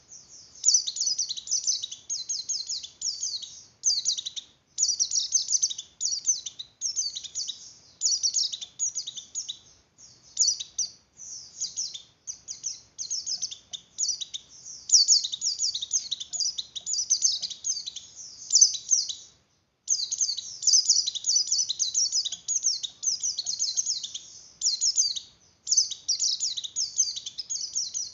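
White-eye (pleci) in breeding excitement giving rapid, high-pitched twittering chirps in bouts separated by short breaks, with one longer pause about two-thirds of the way through. This is the 'oper birahi' call used by keepers to stir other white-eyes into breeding condition.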